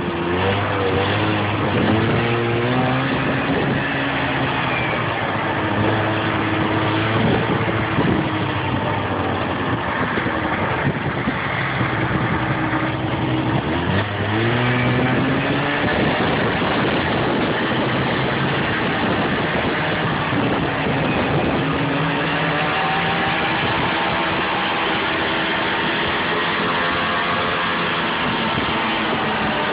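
Snowmobile engine running under way, its pitch rising and falling several times as the throttle is opened and eased, over a steady hiss.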